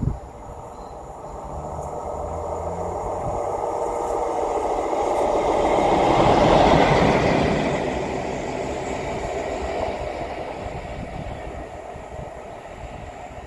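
Class 47 diesel locomotive (47802) running light engine past, its Sulzer twelve-cylinder diesel engine and wheels on the rails. It builds up, is loudest about halfway through as the locomotive passes close by, then fades away.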